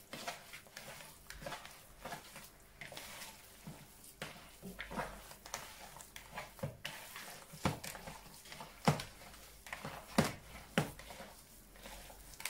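Hands kneading a raw minced-meat meatloaf mixture in a plastic bowl: irregular wet squelches and soft knocks against the bowl, with a few sharper ones in the second half.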